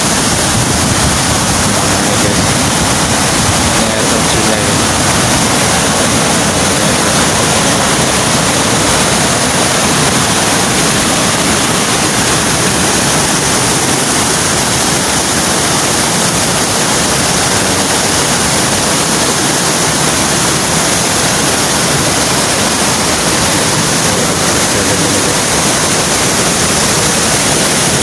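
Steady, loud rush of water from a waterfall about 200 metres high, heard from the top of the falls.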